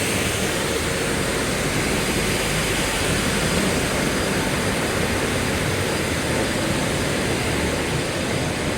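Veneer board sanding line running: a steady, even roar of machine motors and moving air, with a few faint steady high whines.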